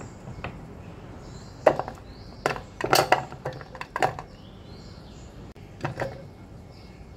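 Garlic cloves and ginger pieces dropped by hand into a plastic food-chopper bowl, clattering against the plastic and the metal blade in a string of sharp knocks, most packed together about three seconds in.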